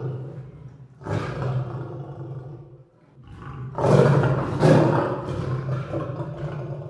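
A lion roaring in low calls. One call comes about a second in and dies away within two seconds. A louder, longer one starts about three seconds in, peaks twice and trails off.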